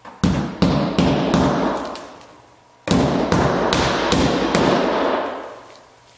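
Hammer driving inch-and-a-quarter roofing nails through the flange of a polypropylene roof vent into the roof deck: two runs of about five blows each, a little over two blows a second, with a short pause between the runs. Each blow rings on briefly after the strike.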